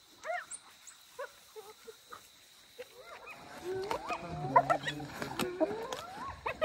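Spotted hyenas and African wild dogs calling as they compete over a kill. At first there are only a few faint short chirps. From about halfway there are many overlapping calls that glide up and down in pitch, with a lower drawn-out sound under them.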